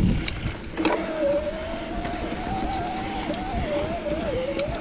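Santa Cruz Heckler e-mountain bike's Shimano EP8 mid-drive motor whining under pedalling, its pitch wavering up and down with cadence, over a low wind rumble on the microphone. The whine breaks off briefly at the start, and sharp knocks from the bike on the trail come at the start and about a second in.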